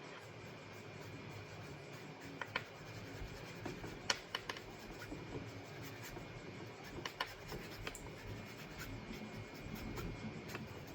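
Painting tool rubbing and scratching on paper as paint is worked in, with a few light clicks and taps scattered through.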